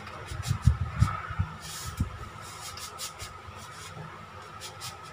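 A ring of metal measuring spoons clicking and clinking as it is handled, with a handful of dull low thumps between about half a second and two seconds in, over a faint steady hum.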